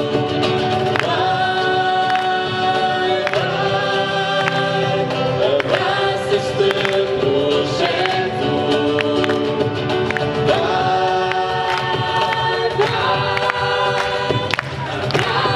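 A Christian song in Portuguese sung by a mixed group of young male and female voices, with a small live band of acoustic guitars and cajón. The voices hold long notes over a steady strummed and tapped beat.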